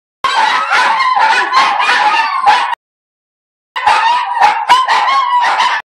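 Several small long-haired dogs howling and yipping together in a wavering chorus. It comes in two stretches of about two and a half and two seconds, each cutting off abruptly into about a second of silence.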